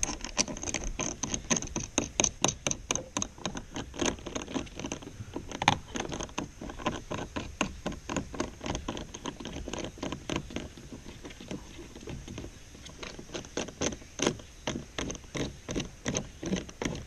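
Quick plastic-and-metal clicking, about three to four clicks a second, as a kayak-carrier adapter is fastened and tightened onto a roof-rack crossbar, with one louder knock a little before six seconds in.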